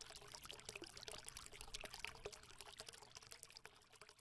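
Faint, dense crackling of many tiny clicks, dying away shortly before the end.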